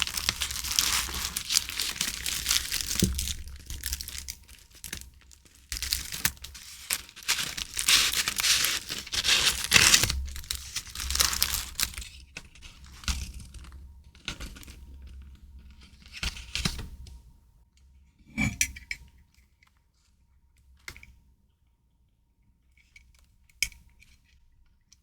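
Packaging being torn open and crinkled, with dense rustling crackle for about twelve seconds, then dying down to scattered light taps and clicks.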